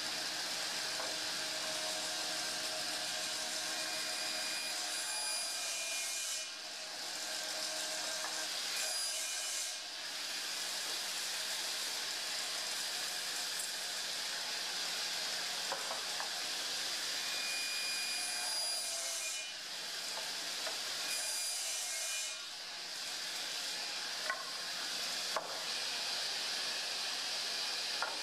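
Sliding-table panel saw running steadily with a whine, crosscutting hardwood boards to length. Two sharp knocks come near the end.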